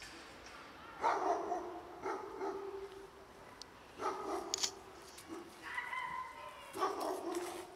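About five short animal calls, each about half a second long, spaced a second or so apart.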